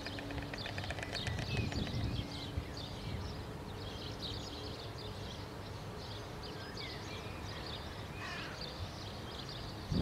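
White storks clattering their bills in a fast, even rattle that stops about a second and a half in, followed by songbirds chirping in the trees over a steady low background noise.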